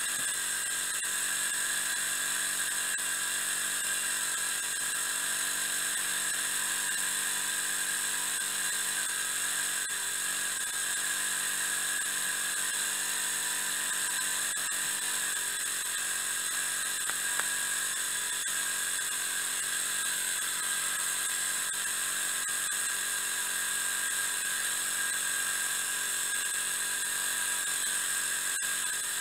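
Miniature three-cylinder steam engine running steadily under steam, giving a continuous high-pitched whine with a hiss.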